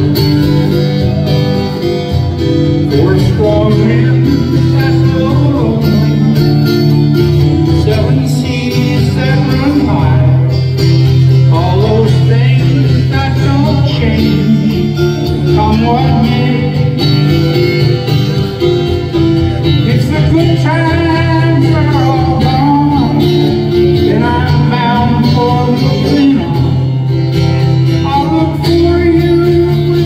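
Live acoustic folk music: a steel-string acoustic guitar strummed steadily, with a bending melody line carried over it.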